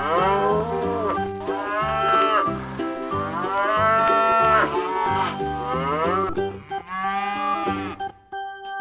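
A cow mooing, several long calls one after another during the first six seconds, over children's background music with a steady beat.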